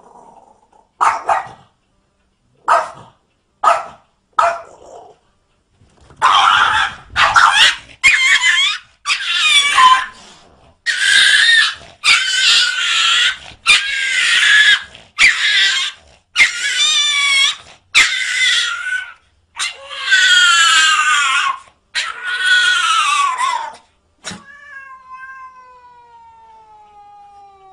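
A cat yowling over and over. A few short cries are followed by a long run of drawn-out, wavering calls of one to two seconds each with short gaps. Near the end one long call slides down in pitch.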